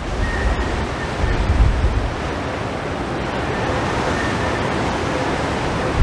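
Heavy storm surf breaking in a strong wind. Wind buffets the microphone in low rumbling gusts, heaviest in the first second or two.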